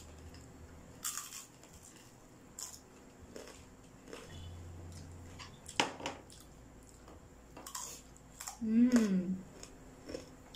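Scattered crunches and clicks of people eating at a table, one sharper crack about six seconds in. A short hummed voice sound near the end, the loudest sound.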